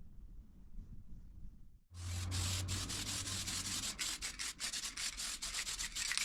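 Sandpaper being rubbed over a primed car body panel in quick back-and-forth strokes, starting about two seconds in.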